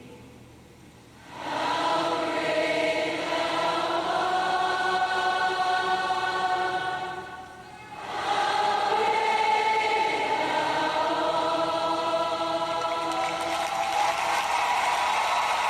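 Background choral music: sustained sung chords that swell in about a second and a half in, break off briefly around halfway, then continue.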